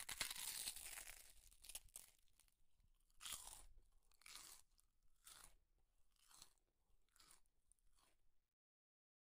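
Close-up sounds of a person chewing a handful of rice and curry eaten by hand, a soft noisy burst about once a second, loudest as the food goes in at the start. The sound stops abruptly near the end.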